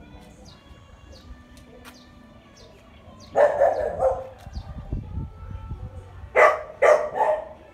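A dog barking: one longer bark about halfway through, then three quick barks near the end.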